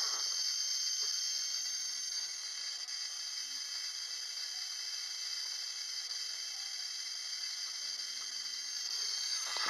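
A 12-volt ignition coil, switched by a MOSFET circuit, firing a spark plug continuously: a steady, high-pitched hiss that does not let up.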